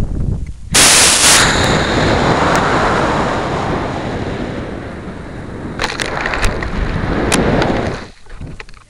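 Model rocket motor igniting about a second in with a sudden loud blast, then a rushing roar of thrust and air rushing past the rocket body, picked up by a camera riding on the rocket. The roar eases, swells again with a few sharp clicks, and drops away suddenly near the end.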